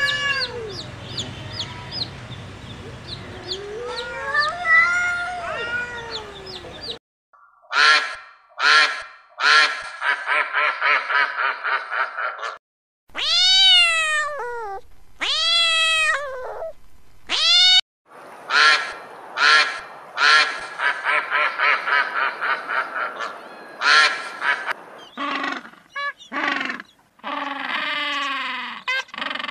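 A string of animal calls from several clips: long meows that rise and then fall in pitch, a few seconds apart, from a cat, between fast runs of short repeated calls at several a second.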